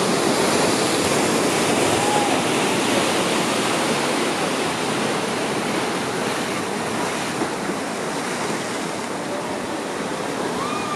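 Small ocean waves breaking and washing in: a steady rush of surf, easing slightly after the middle, with a few faint short calls over it.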